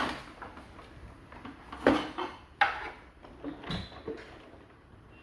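A few sharp knocks and clatters of hard objects being handled and set down, four in all, the loudest about two seconds in.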